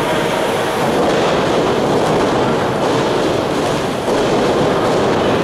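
Steady din of a small wrestling crowd cheering and clapping, a dense rush of noise with no single voice standing out.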